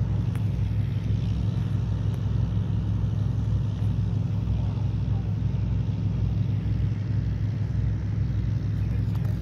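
Inline skate wheels rolling over a concrete pier, a steady low rumble.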